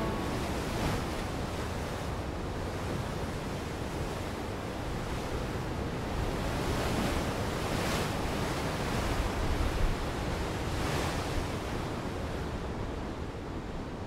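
Heavy ocean surf breaking: a steady rush of churning water with louder crashes of breaking waves about 1, 8 and 11 seconds in.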